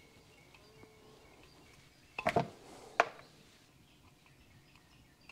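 Quiet garage room tone, broken by a brief rattle of handling knocks about two seconds in and one sharp click about a second later, from handling the oil filter housing cap and filter parts.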